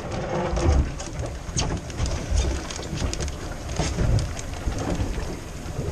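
Wind buffeting the microphone in uneven low gusts, with a scattered crackle of small clicks over a steady hiss.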